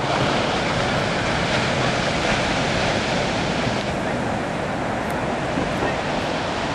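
Ocean surf: small waves breaking and washing up the beach in a steady rushing wash.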